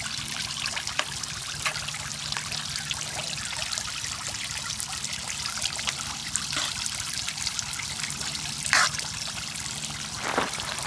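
Steady trickle of running water, with scattered small clicks and two sharper ticks near the end.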